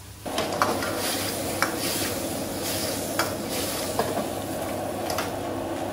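Spicy crayfish stir-frying in a wok: steady sizzling that starts about a quarter second in, with the spatula knocking sharply against the wok about five times as the food is tossed.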